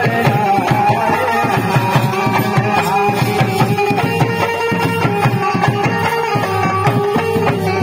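Dholak played by hand in a fast, steady devotional folk rhythm, under a sustained instrumental melody line, with no singing.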